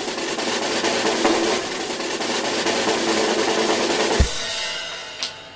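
Drum roll sound effect on a snare, building up to a score reveal and ending about four seconds in with a single hard hit that rings down and fades.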